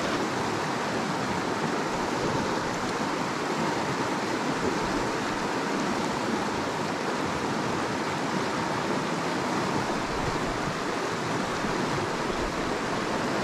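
Small mountain stream running steadily over rocks and shallow riffles, an even rush of water.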